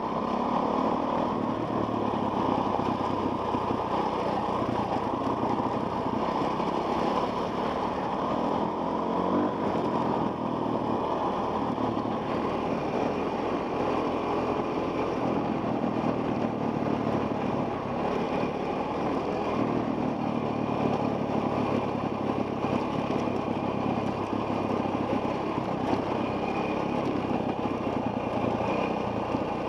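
Enduro dirt bike engine running steadily as it rides along a dirt trail, with no hard revving or stops.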